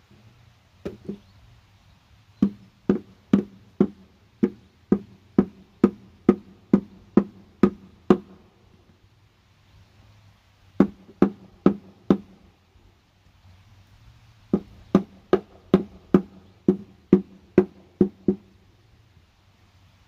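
Hammer blows on a wooden stool under construction, knocking its boards and joints together at about two strikes a second. The blows come in three runs with short pauses between.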